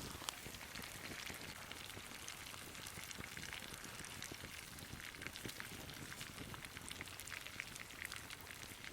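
Tomahawk steak sizzling in butter in a pan over a campfire: a steady sizzle dotted with many small crackles and pops.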